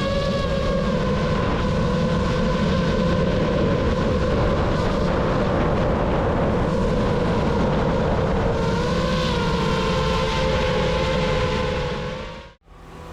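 DJI FPV drone's motors and propellers whining in flight over rushing wind. Several pitches drift together and bend about nine seconds in as the throttle changes. The sound cuts out abruptly near the end.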